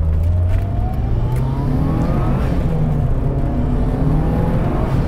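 Mitsubishi Lancer Evo VI Tommi Makinen Edition driving on the road, engine pulling under acceleration. A whine climbs steadily in pitch for about two and a half seconds and then falls away, over a loud, steady low engine drone.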